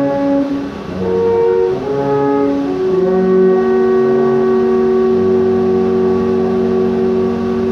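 Alphorns playing a slow phrase in two or more parts: a few short sustained notes, then, about three seconds in, a long held closing chord that fades away near the end.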